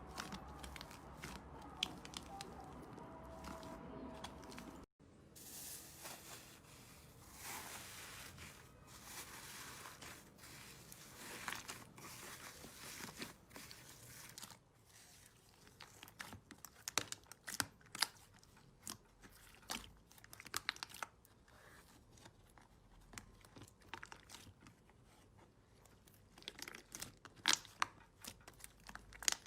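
Slime being squeezed and worked by hand, with a steady run of small crackles, clicks and pops, growing sharper in the second half. About five seconds in the sound cuts abruptly from a quieter passage to the crackling.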